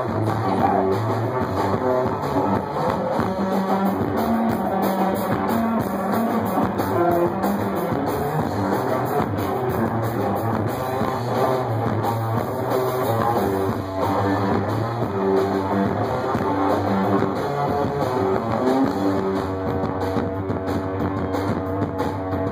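Live rock band playing loudly and without a break: electric guitar riffing over a drum kit.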